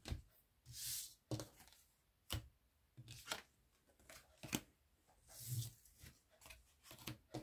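Tarot cards being shuffled and handled: a run of light snaps and taps, with a longer papery swish about a second in and again past the middle.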